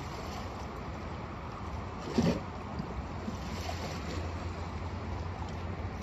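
Steady seaside noise of surf and wind on the microphone, with one brief louder knock about two seconds in.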